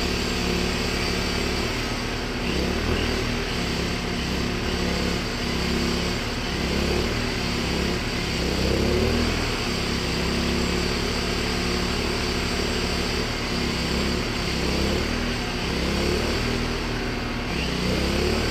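Small single-cylinder engine of a 1000W inverter generator running with its cover off, its speed wavering up and down every second or two instead of holding steady, while it runs on its own fuel after being kept alive on ether.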